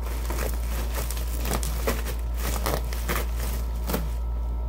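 Bubble wrap being pulled and crumpled by hand, irregular crinkling and crackling, over a steady low hum.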